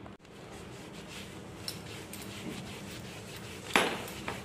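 Quiet handling of leather shoes and a leather belt, with a few light clicks. One sharp knock comes near the end as the belt is picked up.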